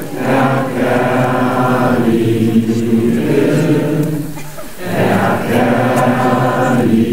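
Choir singing long, held chords, with a short dip in the singing just before the chord changes near the end.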